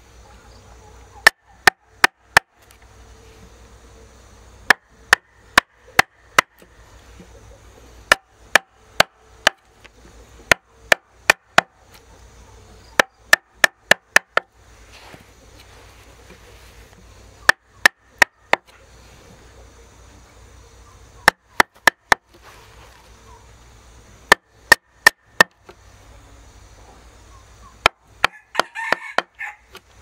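Steel chisel driven into a log with a wooden mallet, cutting out a hole: sharp knocks in bursts of four to six, about three a second, with short pauses between bursts.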